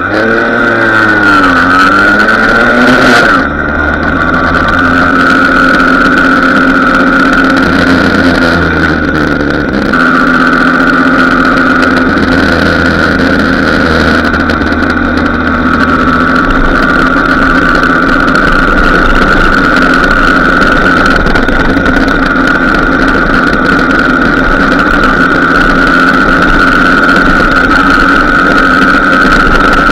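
Small two-stroke moped engine running on the move, heard from a camera on a moving moped. Its pitch sweeps up and down a few times in the first few seconds, then holds a steady, buzzing cruise.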